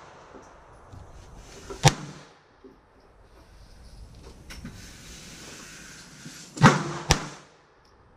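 Semi-automatic pistol shots: one about two seconds in, then two more about half a second apart near the end.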